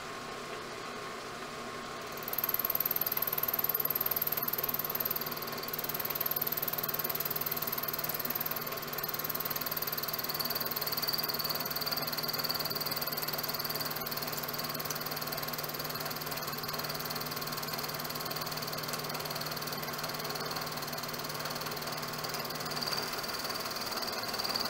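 Milling machine running, its end mill cutting aluminum from about two seconds in. The cutting adds a high steady whine over the motor's hum.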